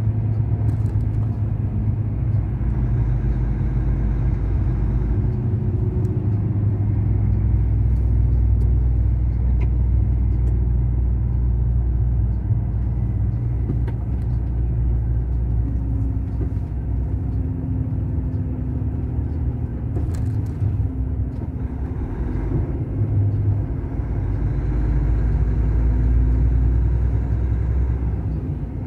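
Truck's diesel engine and wet-road tyre noise heard from inside the cab while driving, a steady low drone whose pitch shifts slightly now and then.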